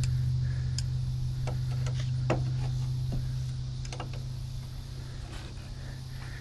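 A handful of light metal clicks and taps, spaced irregularly, from a hand wrench and metal parts being worked around the engine mount. A steady low hum runs underneath and slowly fades.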